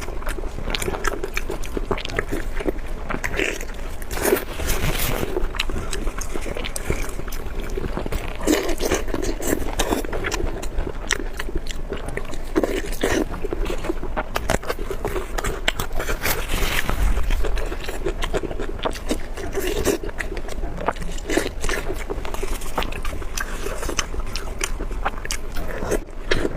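A person chewing and biting food close to the microphone, with many sharp mouth clicks and smacks.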